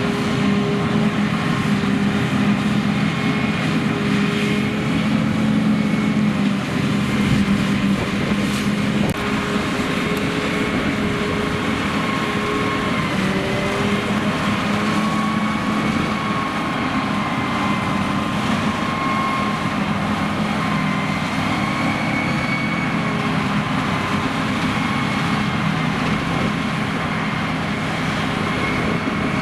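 Heavy diesel farm machinery engine running steadily under constant throttle, its pitch wavering only slightly.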